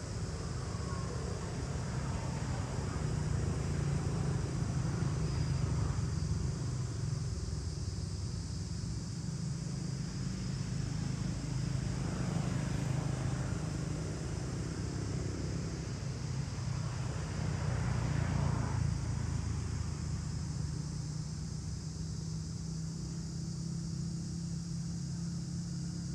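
Steady low motor hum running throughout, under a constant high hiss; it swells slightly about four seconds in and again near eighteen seconds.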